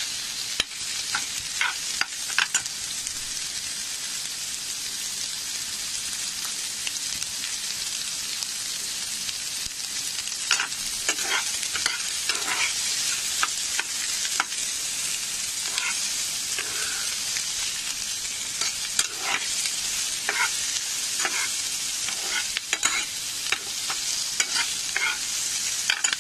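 Sliced onions sizzling in a little hot oil in a pan, with a steady hiss, being fried until light pink. A metal spoon stirring them clicks and scrapes against the pan now and then.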